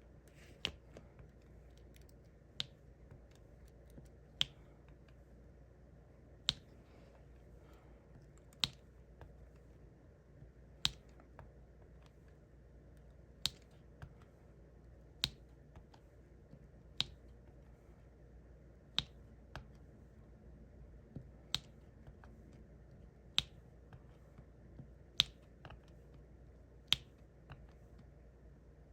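Diamond painting drills being pressed one by one onto the sticky canvas with a drill pen: a sharp little click or pop about every two seconds.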